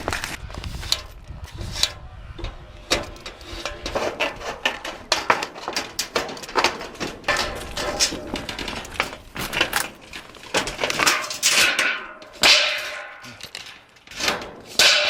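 A rapid, irregular run of sharp knocks and clicks, with no steady rhythm.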